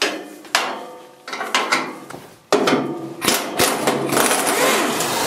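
Several sharp metal clinks and taps of tools on the tractor's front-end steel parts. About two and a half seconds in, a handheld power tool starts and keeps running steadily.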